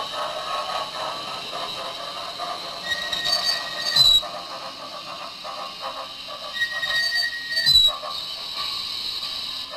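Onboard sound of a Broadway Limited HO-scale cab-forward steam locomotive model running in reverse: steady chuffing through its small speaker. Two brief high tones about four seconds apart, each ending in a sharp squeal and a thump, and a hiss near the end.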